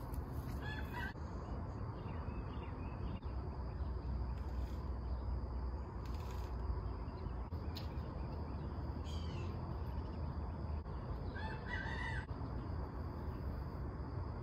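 Chickens calling in the yard, with a rooster crowing about eleven and a half seconds in, over a steady low rumble.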